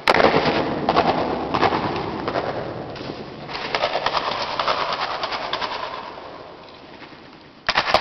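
Firework going off inside a concrete ammunition bunker: a sudden crackling hiss that echoes and fades, flares again about three and a half seconds in, and dies down before another loud burst starts near the end.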